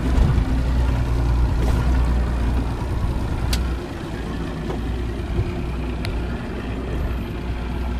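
Mercury outboard motor running steadily with the boat under way, a deep drone with wind and water rushing past; it gets a little quieter about halfway through, and a couple of brief clicks stand out.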